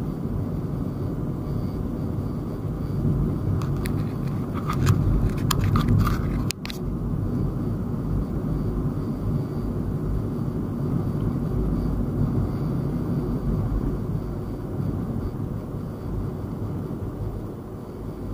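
Road noise heard inside a moving car: a steady low rumble of tyres and engine. A handful of short clicks and ticks come between about four and six and a half seconds in, and the sound drops for an instant just after them.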